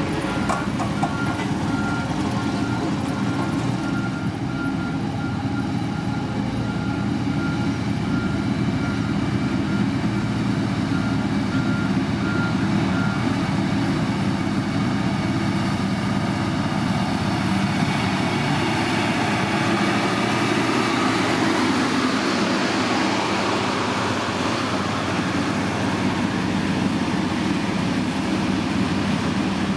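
Diesel engine of heavy road-building machinery running steadily under work, with a reversing alarm beeping repeatedly through the first half, then stopping.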